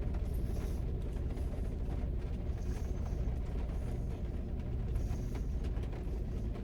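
Steady low rumble of a car's idling engine heard from inside the cabin.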